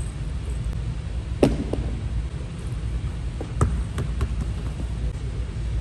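A basketball bouncing on a hardwood gym floor. One loud bounce with a short ringing note comes about a second and a half in, then a few quicker bounces follow close together, over a steady low rumble.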